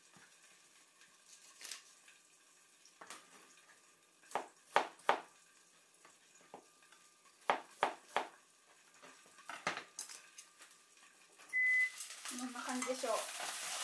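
Kitchen knife cutting on a cutting board in about ten scattered sharp knocks. Just before the end there is a short high ringing tone, then the lid comes off a frying pan and nanohana greens sizzle in garlic oil.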